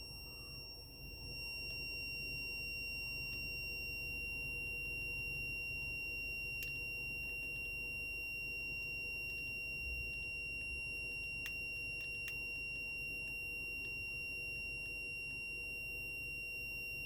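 A continuous high-pitched whistle, one steady tone held without a break, over a low rumble, with a few faint clicks.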